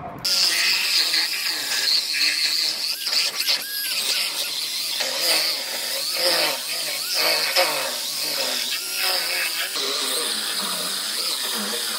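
Handheld cut-off wheel tool starting up about a quarter second in and cutting into a steel quarter panel: a steady high-pitched whine with a squeal whose pitch dips and recovers again and again as the wheel bites into the sheet metal.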